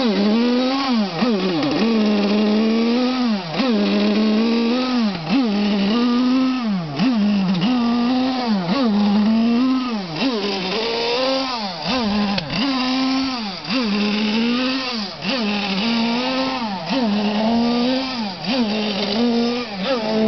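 Small high-revving two-stroke engine of an FSR-V Tornado Evo 5 model, running unevenly. Its pitch sags sharply and climbs back about once a second, the kind of running that goes with the carburetion problems the model is being filmed for.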